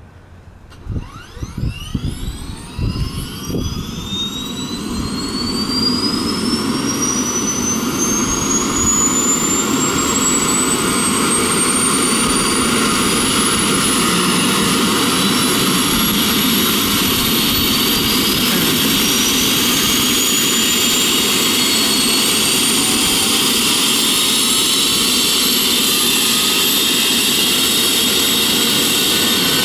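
Airbus (Eurocopter) EC135T2+ helicopter's Turbomeca Arrius turboshaft engines starting up. A turbine whine rises in pitch and builds in loudness over the first ten seconds or so, then holds as a steady high whine, and another rising whine joins partway through. A few low thumps come in the first few seconds.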